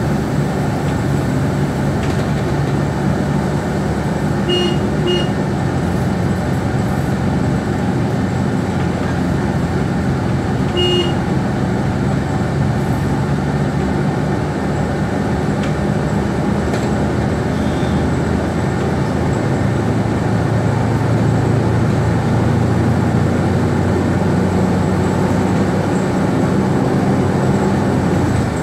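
Steady engine and road noise heard from inside a moving vehicle in traffic. Short vehicle-horn toots come twice about five seconds in and once more about eleven seconds in.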